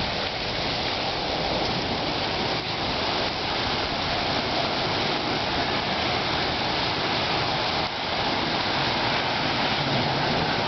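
Sleet coming down in a winter storm: a steady hiss of precipitation hitting surfaces.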